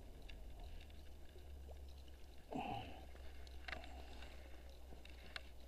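Quiet handling sounds from a spinning rod and reel in an inflatable packraft while a fish is being played: a few sharp clicks over a low steady rumble, with a short falling vocal sound about two and a half seconds in.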